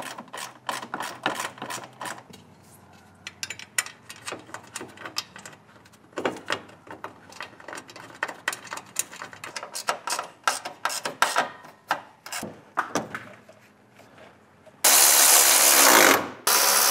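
Light clicks and knocks of bolts and brackets being handled and started by hand. Near the end, a cordless ratchet with a 13 mm socket runs twice, about a second each time, driving the condenser brace bolts in.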